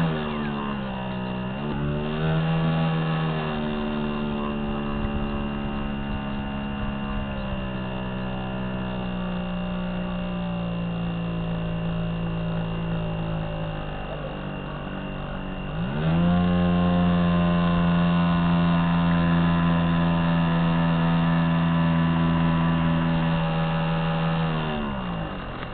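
Drive motor of a radio-controlled model ship, heard from a camera on board, running with a steady hum whose pitch rises and falls with the throttle. It speeds up early on, eases off about two-thirds of the way through, then rises again to its loudest and winds down near the end.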